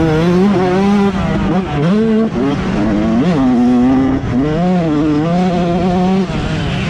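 Motocross bike engine revving hard as the rider rides the track, its pitch climbing and dropping several times as the throttle is opened and eased off, with short breaks where the throttle closes between gears.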